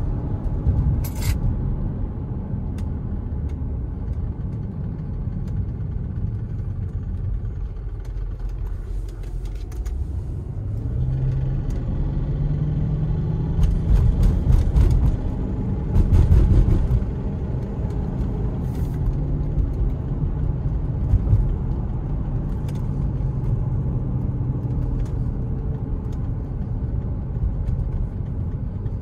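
Porsche Cayenne Turbo's twin-turbo V8 with factory sports exhaust, heard from inside the cabin while driving, over a steady tyre and road rumble. About eleven seconds in the engine note rises under acceleration and is loudest a few seconds later, then settles back to a steady cruise.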